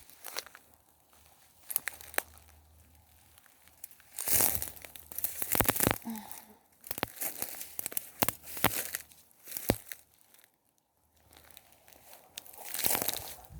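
Footsteps crunching and rustling through dry leaf litter and scrub, with sharp snaps of twigs, in uneven bursts with quieter pauses between.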